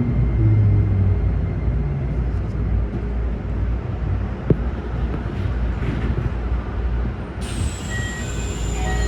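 Keikyu 1000-series electric train running, its traction motors giving low tones that stop after about a second and a half. About seven and a half seconds in, a hiss of air with a high whistle sets in.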